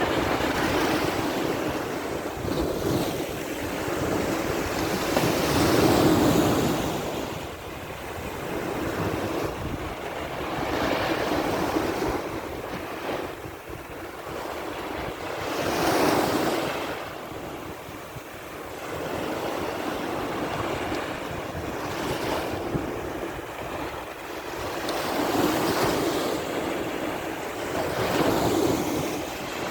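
Sea surf: waves washing in and breaking on the shore, the rush of water swelling to a peak and falling away about every ten seconds.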